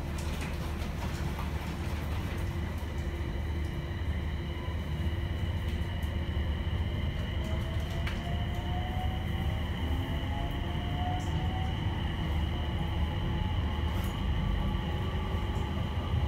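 Interior running sound of a JR East E721-1000 series electric train accelerating, its Mitsubishi IGBT VVVF inverter and traction motors giving a steady high whine over the low rumble of the wheels. About halfway through, a motor tone begins climbing slowly in pitch as the train gathers speed.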